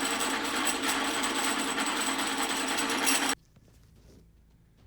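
Mitsubishi 3000GT/Stealth 5-speed AWD transmission gears spinning on a drill press in neutral, with a dense, fast rattle. It comes from the 3rd/4th synchro slider, which the shift fork does not hold centred, so the synchros bounce off each other's teeth. The rattle cuts off suddenly about three and a half seconds in.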